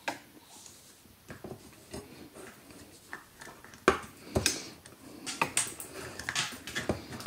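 Handling noise of a bicycle floor pump's rubber hose being worked back onto its metal fitting by hand: scattered small clicks and taps with light rustling, the sharpest knocks about four seconds in.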